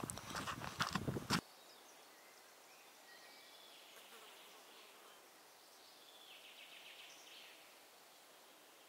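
Footsteps of someone walking on a dirt forest track for about the first second and a half, stopping abruptly. After that, quiet woodland ambience with faint, high-pitched buzzing and chirping.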